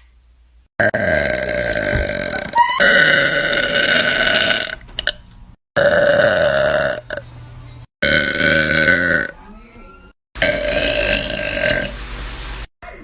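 Girls burping, a string of about five long, loud burps from separate clips, each one to two seconds long, with abrupt cuts between them.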